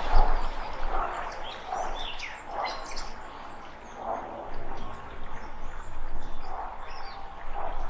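Several birds singing together: many quick high chirps and short falling notes, with a lower call repeating every second or two.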